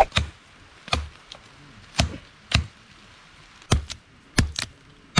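Machete chopping into a small green tree trunk: about eight sharp blows at uneven intervals, a few coming in quick pairs.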